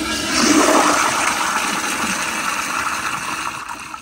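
2000 Crane Plumbing Placidus toilet flushing on a 1.6-gallon setting with the water pressure turned all the way up. The flush is a sudden, really loud rush of water that eases off gradually and dies away near the end.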